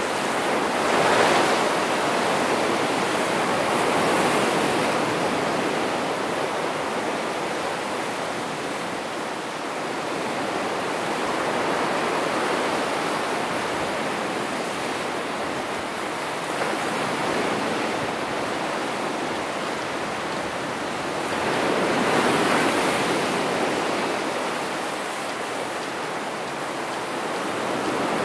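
Ocean surf breaking and washing over a rocky shore: a steady rush of water that swells louder as each wave comes in, most strongly about a second in and again about twenty-two seconds in.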